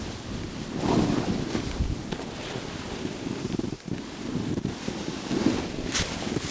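Edges scraping over snow during a fast descent, in uneven surges, with wind rumbling on the microphone.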